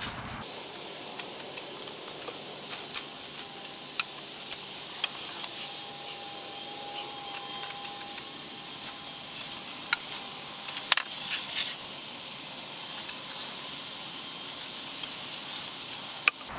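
Light clicks, knocks and rustles of someone moving about on wooden boards over a leaf-strewn floor, over a steady hiss. There is a brief flurry of louder clicks a little past the middle.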